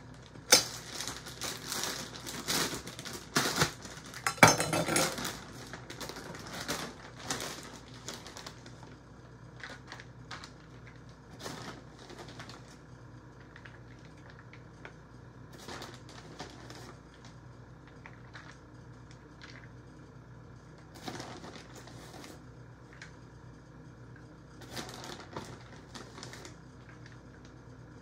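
Aluminium foil pan and plastic bag handled while shredded cheese is sprinkled by hand: crinkling and clicking, busy for the first several seconds, then sparse soft ticks and rustles.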